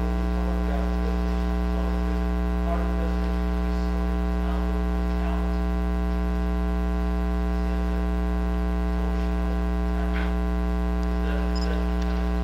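Loud, steady electrical mains hum with a stack of harmonics, unchanging throughout. A faint, distant voice comes through it now and then: an off-microphone question from the audience.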